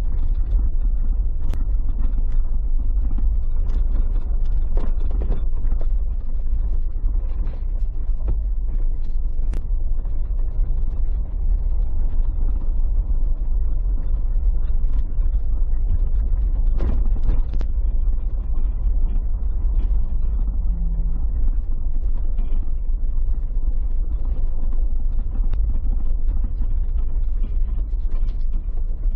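Motorboat underway on a lake: a steady low rumble with scattered knocks and clicks.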